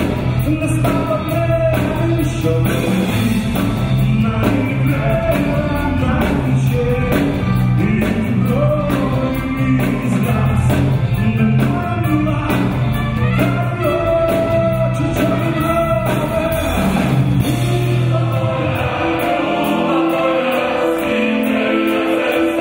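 Live rock song with electric guitars and a male lead vocal, backed by a folk choir. About 18 seconds in, the heavy bass line drops out and the music thins to held choral notes.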